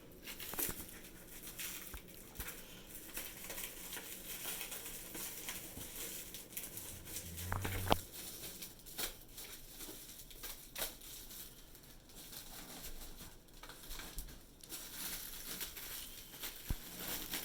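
Packaging crinkling and tearing as wood is unpacked, with scattered light clicks and one sharper knock about eight seconds in.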